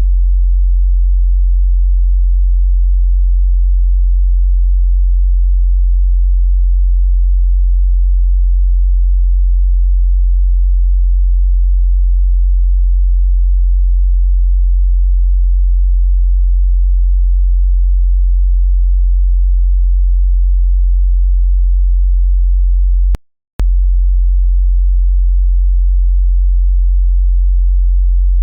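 Steady 45 Hz sine-wave test tone for subwoofer bass testing, a single low hum held at one pitch. It breaks off into silence once, very briefly, about three quarters of the way through.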